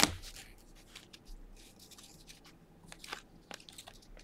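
Baseball cards being flipped through and slid against each other by hand: a sharp click at the start, then faint, scattered ticks and rustles of card stock.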